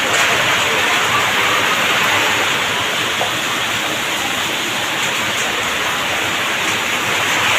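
Heavy rain pouring down, a steady, even rush of water.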